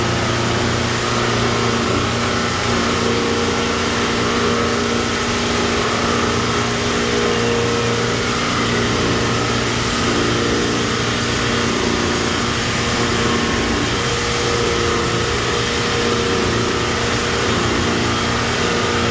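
GMK RECO130 dry-type scrap-wire chopping machine with built-in density separator running steadily while scrap cable is fed in: a constant motor hum with several steady tones over an even grinding noise.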